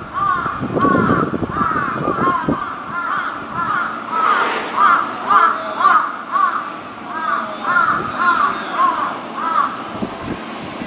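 Short bird-like calls repeating about two or three times a second, with a low rumble under them for the first two seconds or so.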